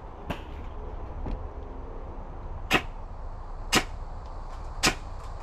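Electric airsoft gun test-fired in single shots, three sharp shots about a second apart, each cycling the gearbox cleanly; fainter clicks come before them.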